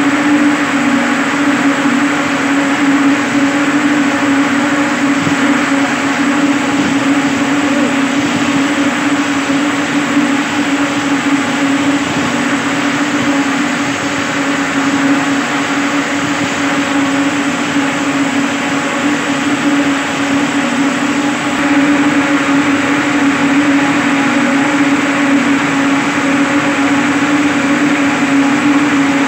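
Ring spinning frames running in a cotton mill: a steady, loud machine drone of spinning spindles and drafting rollers, with a strong low hum and a few steady higher tones.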